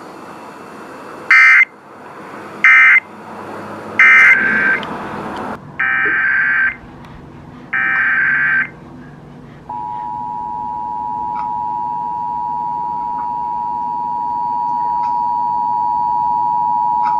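Emergency Alert System (SAME) data bursts: five short screechy digital tone bursts in the first nine seconds, the last two longer, with faint radio hiss between them. About ten seconds in, the steady two-tone EAS attention signal starts and holds.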